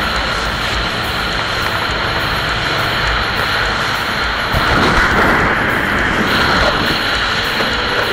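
Steady wind and road noise of a car driving at speed, picked up by an action camera mounted on the outside of the car. The rush swells louder for a second or two about halfway through.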